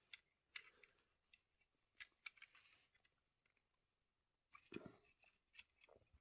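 Near silence broken by a few faint clicks and taps from a small 1:64 diecast model car being handled, its tiny opening door worked by hand. There is a small cluster of clicks near the end.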